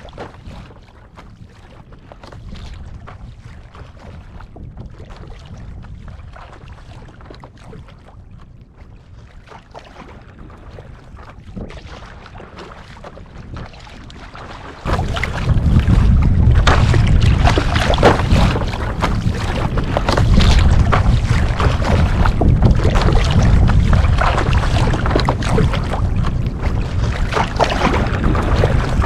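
Paddle board on a choppy sea in strong wind: water splashing and lapping against the board, then about halfway through a sudden jump to loud wind buffeting the microphone over the splashing water.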